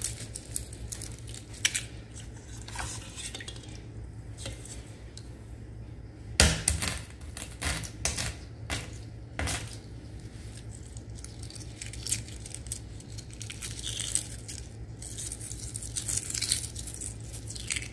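Hard-boiled eggs being cracked and peeled by hand over a stainless steel pot: scattered crackles of shell and light clinks as pieces fall into the pot, with one sharper knock about six seconds in.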